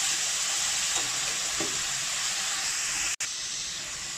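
Chopped tomatoes sizzling in hot oil with fried onions in a kadai, a steady frying hiss. It breaks off for an instant about three seconds in, then goes on a little quieter.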